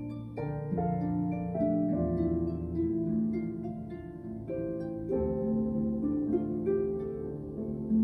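Concert harp and Steinway grand piano playing together: a steady run of plucked harp notes over held low notes and chords.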